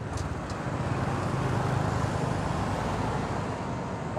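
Steady low outdoor background rumble, with two faint ticks in the first half second.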